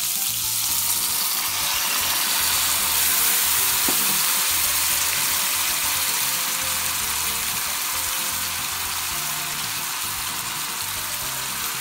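Sauce poured into a hot frying pan of pork-wrapped tomato rolls, sizzling hard as it hits the hot fat; the sizzle swells over the first few seconds and then eases slightly as it simmers down.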